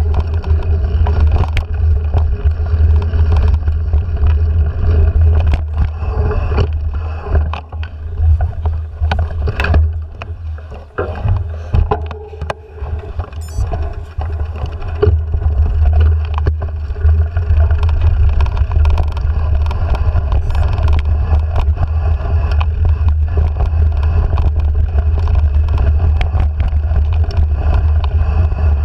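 Wind buffeting a handlebar-mounted action camera's microphone as a mountain bike rides a dirt singletrack, with rattles and knocks from the bike over the rough trail. The noise eases for a few seconds partway through as the bike slows, then comes back steady.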